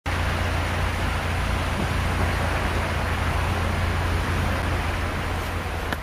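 Steady road traffic noise: cars driving along a slushy, snow-covered city street, their tyres hissing on the wet road over a low rumble.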